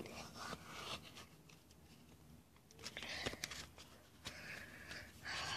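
Faint rustling and scraping of a handheld phone being moved against a plastic mask, hair and clothing, with a few small clicks.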